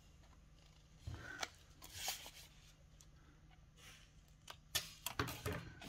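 Small scissors snipping the corner off a cardstock strip to angle its glue flap: a few short, quiet snips with paper handling, more of them near the end.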